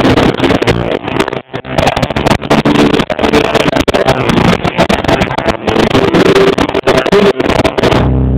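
Live band playing loud, with electric guitar and fast drum hits, recorded so close to full level that the sound is overloaded and distorted. Near the end the playing breaks off.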